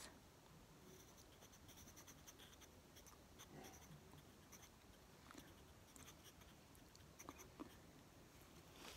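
Faint scratching of a pencil on sketchbook paper, a scatter of short strokes as small spikes are drawn.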